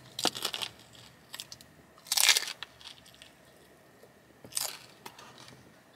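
Crisp fried taco shell crunching as it is bitten and chewed: a few small crunches at the start, the loudest crunch about two seconds in, and another about four and a half seconds in.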